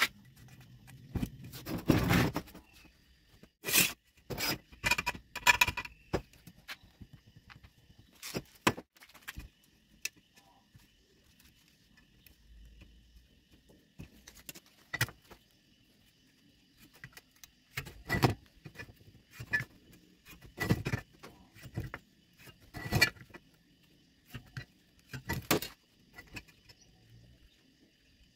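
Galvanized square steel tube and a steel ruler being handled on a steel workbench: irregular sharp metallic clinks, taps and short scrapes, with quiet gaps between them.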